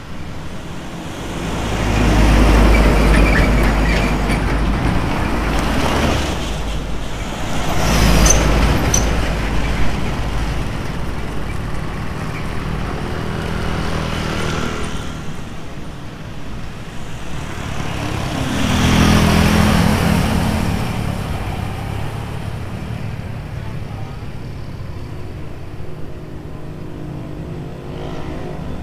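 Highway traffic with heavy trucks going by one after another. Three loud passes swell and fade: one starting about two seconds in, a shorter one around eight seconds, and another around nineteen seconds, over a steady rumble of road noise.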